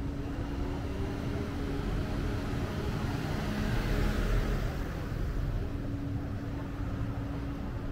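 City street traffic: a motor vehicle passes about halfway through, its noise swelling and fading over a steady low rumble and a faint hum.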